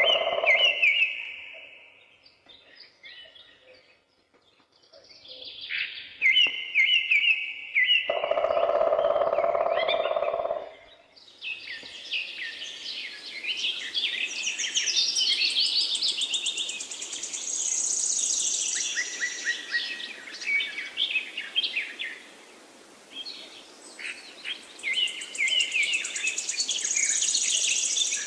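Songbirds singing, sparse at first and then several songs overlapping into a steady chorus from about eleven seconds in. About eight seconds in, a lower steady sound runs for a couple of seconds under the birdsong.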